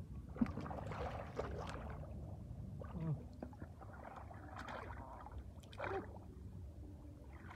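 Shallow muddy water splashing and sloshing in irregular spurts as hands grope through it for fish.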